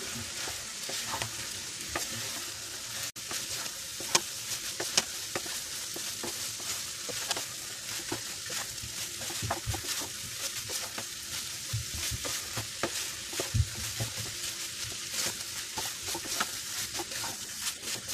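Wooden spatula stirring soya chunks in masala in a non-stick frying pan: a steady sizzle of frying with frequent short scrapes and taps of the spatula against the pan.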